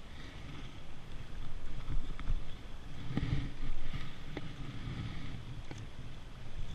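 Shallow river water sloshing and splashing close by as a trout is held in the current, over the steady rush of the river, with a few short splashes and low surges of water against the microphone.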